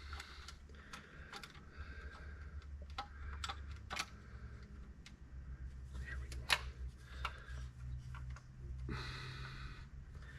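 Irregular sharp metallic clicks and clinks of hand tools working on tractor bolts, with a short rasping burst about nine seconds in, over a steady low hum.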